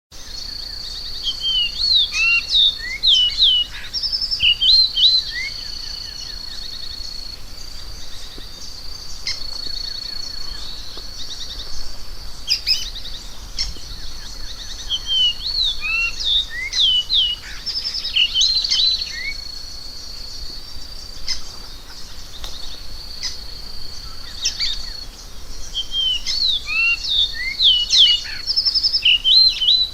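Variable oriole (the Brazilian 'encontro') singing: bouts of quick, curving whistled notes, about three bouts spaced roughly ten seconds apart. A steady high-pitched tone runs beneath, broken now and then.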